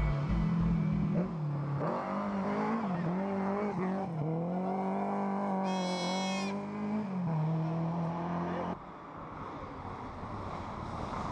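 Rally car engine revving hard, its note rising and falling through gear changes and throttle lifts, with a brief high-pitched squeal about six seconds in. The sound drops suddenly, then another rally car's engine grows louder as it approaches near the end.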